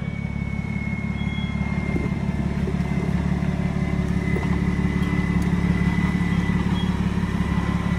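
Nissan Patrol's swapped-in BMW M57 straight-six turbodiesel running steadily under load as the truck crawls up a steep dirt slope, growing slightly louder, with a faint high whine above it.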